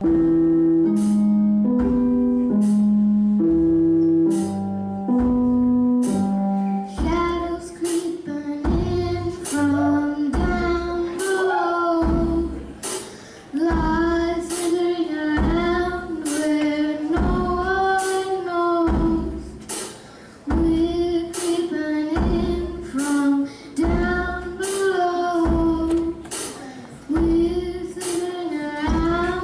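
Children's rock band playing live. It opens with about seven seconds of held keyboard chords, then a girl sings over keyboards and a drum kit.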